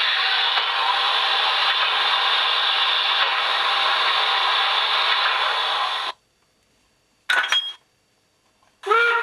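Sound decoder of a Fleischmann P10 model steam locomotive playing its air-pump sound, a steady hiss that cuts off suddenly about six seconds in. Two short coupling sounds follow, about a second and a half apart.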